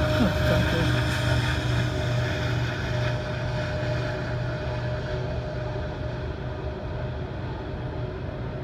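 Norfolk Southern double-stack intermodal freight train rolling past at a grade crossing, heard from inside a car: a steady low rumble of the passing cars that slowly gets quieter.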